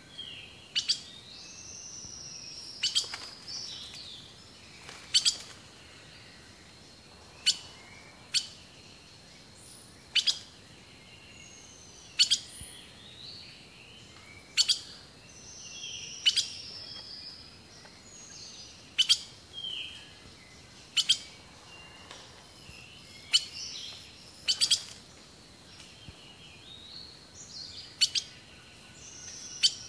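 Sharp clicks every one to three seconds from a sound installation built from opened computer hard disks, each click with short, high, bird-like chirps that mostly slide down in pitch, over a faint steady high tone.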